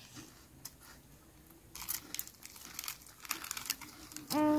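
Plastic snack packet crinkling in short spells as it is handled. Near the end a loud, drawn-out cry starts and holds a steady pitch.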